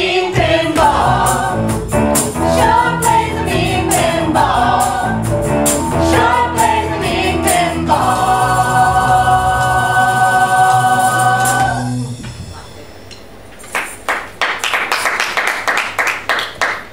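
A group of singers with a live rock band of drums and keyboard sings the close of a song. They hold a long final chord from about eight seconds in, which cuts off at about twelve seconds. After a brief lull, audience applause breaks out.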